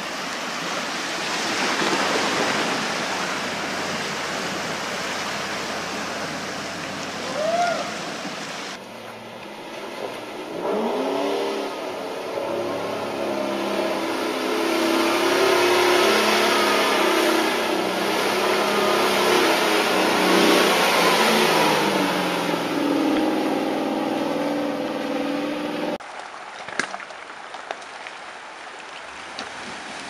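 Land Rover Discovery driving through deep water, with water rushing and splashing around the vehicle. Through the middle stretch the engine note rises and falls loudly with the throttle. Near the end there is a quieter stretch of splashing water.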